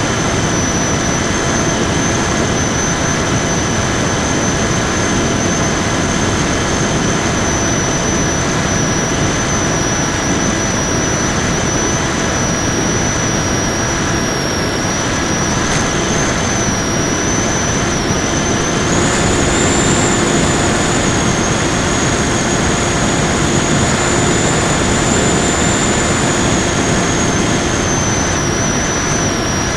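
Electric motor and propeller of an FPV Raptor model plane in flight, heard through its onboard Mobius action camera: a steady high whine over a heavy rush of wind noise. The whine rises in pitch about 19 seconds in as the motor speeds up, then drops back near the end.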